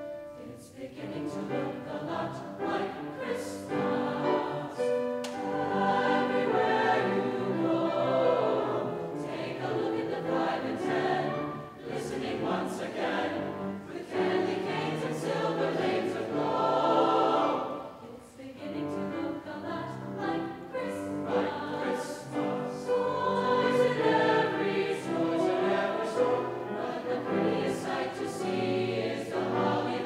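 Mixed choir of men's and women's voices singing a Christmas piece in parts.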